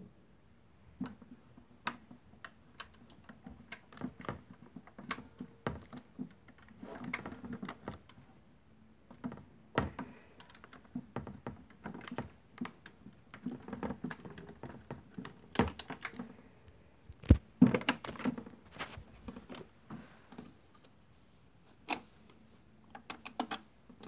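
Irregular light plastic clicks and knocks as a toy Miele W1 washing machine is handled and its door is opened, a few sharper knocks among them.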